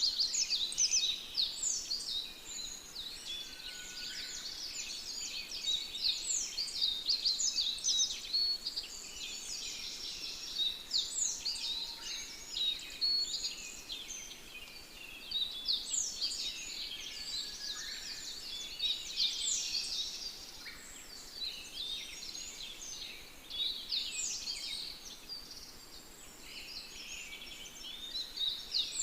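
Many birds chirping at once: a dense, continuous chorus of short, high, downward-sweeping chirps.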